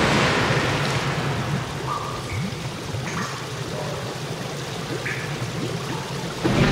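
Cartoon water sound effect: a rush of flood water that dies away, leaving drips and small bubbling gurgles. Music comes in loudly near the end.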